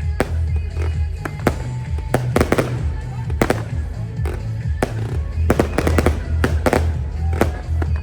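Aerial fireworks bursting in rapid succession, about twenty sharp reports in eight seconds, over music with a heavy, pulsing bass.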